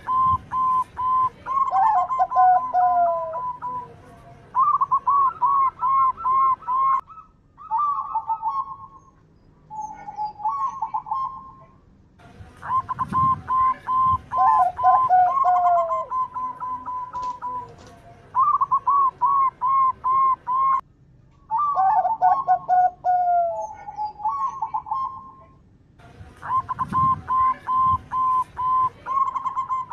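Zebra dove (perkutut) song: phrases of quick, staccato cooing notes with some falling notes, broken by short pauses. The whole sequence repeats about every 14 seconds.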